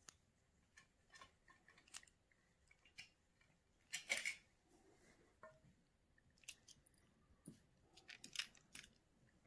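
Faint plastic clicks and rattles of a Tomy Plarail toy train motor chassis being turned over in the hands, with a louder clatter about four seconds in.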